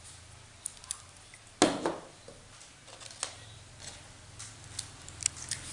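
Scattered light clicks and taps, with one louder knock about a second and a half in.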